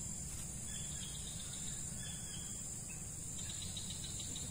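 Steady high-pitched insect chorus, crickets or cicadas chirring without a break, with a faint run of ticking near the end and a low steady rumble underneath.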